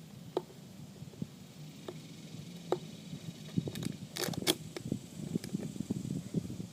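Boxing gloves striking a heavy bag: single punches about once a second, then a quick flurry of several harder blows around the middle, with more following.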